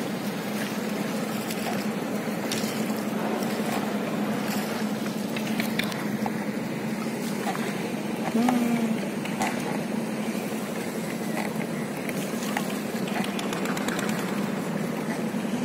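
Steady low drone of a boat engine on the river, over a constant wash of water and wind noise.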